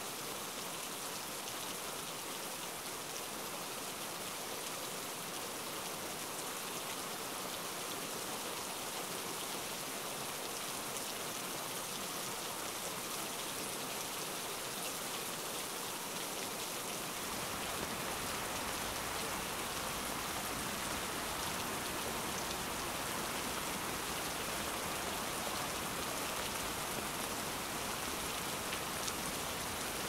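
Steady rain falling on rose bushes and a paved path, an even hiss without a break. A little past halfway it turns slightly louder and fuller in the low end.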